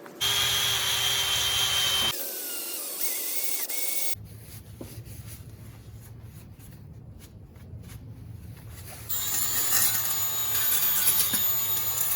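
Handheld power drill spinning a small abrasive scrubber against the inside of the hub housing, cleaning out the bore before the new hub goes in. It runs with a steady whine in the first four seconds, changing pitch about two seconds in, goes quieter in the middle, then runs loudly again for the last three seconds.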